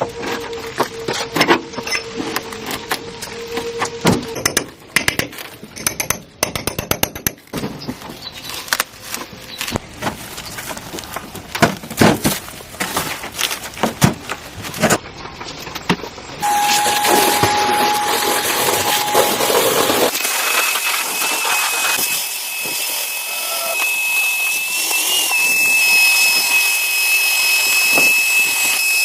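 Workshop tool sounds: for about half the time a run of irregular clicks and knocks, then a power tool running steadily with a high, even whine.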